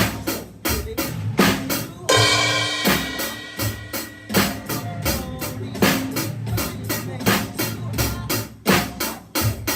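Drum kit playing a steady funk beat, about four strokes a second: eighth notes on the hi-hat, kick drum on beats one and three and snare on two and four. A longer ringing cymbal-like wash comes about two seconds in.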